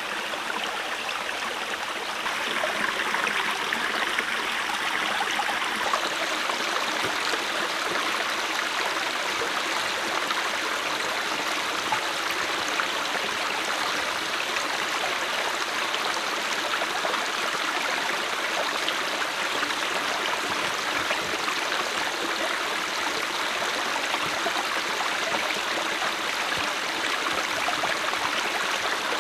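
Small, shallow forest stream running over stones: a steady rush and trickle of water.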